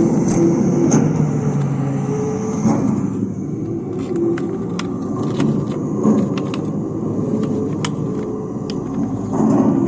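Small electric motors and gears of toy construction vehicles (an excavator and a dump truck) running with a rumbling whir that shifts in pitch. Scattered sharp clicks come from about four seconds in.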